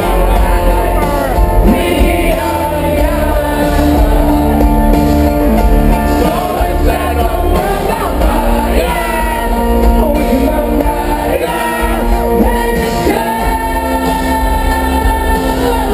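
A live band playing loud amplified music with singing, heard from within a festival crowd, with heavy bass and long held notes.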